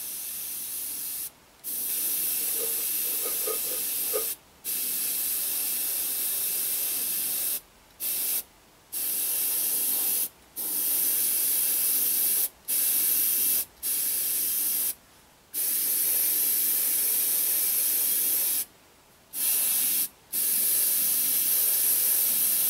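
Airbrush spraying paint: a steady high air hiss that stops and starts again about ten times as the trigger is let go and pressed.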